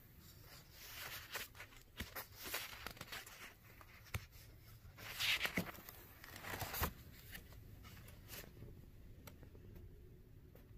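Page of a spiral-bound book of stiff card pages being turned by hand: a run of rustling and scraping with several sharp clicks, loudest about five seconds in.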